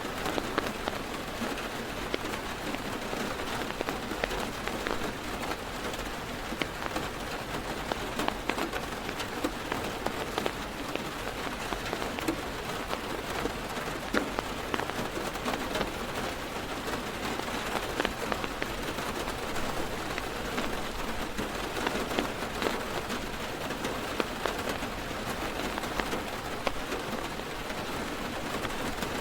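Steady heavy rain drumming on a car's roof and windows, heard from inside the car, with many individual drops ticking sharply through the even hiss.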